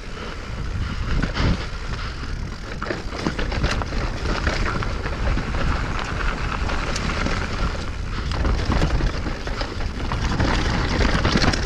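Mountain bike (Stumpjumper Evo alloy) riding hard over rock features on singletrack: tyres on rock and the bike clattering and knocking over the bumps, under heavy wind buffeting on the microphone.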